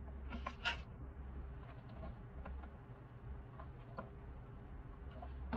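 Light clicks and handling noises of small plastic parts and wires being fitted inside the plastic base of a Xiaomi Mijia humidifier, with a few sharper clicks about half a second in and faint scattered ticks after, over a low steady hum.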